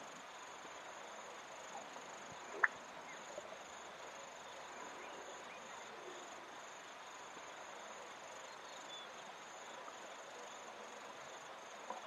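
Black-bellied bustard giving one short, sharp pop, the cork-like note of its call, about two and a half seconds in. Insects trill steadily and high-pitched behind it.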